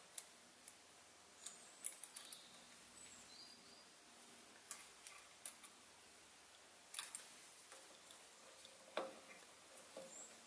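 Faint, scattered metallic clicks and taps at uneven intervals from parts of a Sieg SC3 mini lathe's compound slide, its handle, lock lever and screws, being handled and adjusted by hand.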